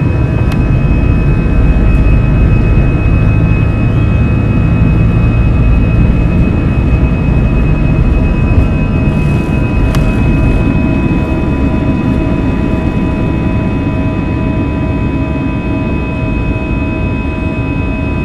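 Airbus A320's CFM56-5B jet engines at take-off thrust heard inside the cabin: a loud, steady roar with several steady whining fan tones (buzzsaw noise) over a rumble. The rumble and the overall loudness ease slowly in the second half as the aircraft leaves the runway and climbs.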